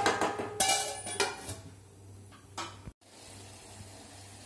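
A kadai and its lid clattering as the pan is covered: several sharp knocks and clinks, some with a brief metallic ring. About three seconds in they stop abruptly, and a faint steady hiss follows.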